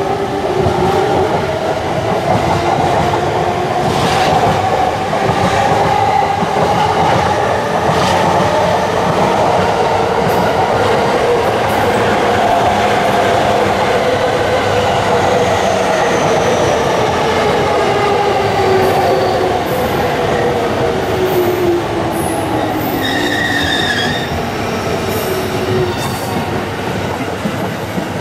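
JR East E231-500 series Yamanote Line electric train running past the platform: a steady rumble of wheels on rail, with the traction motors' whine slowly rising and then falling in pitch. Brief high wheel squeals come near the end.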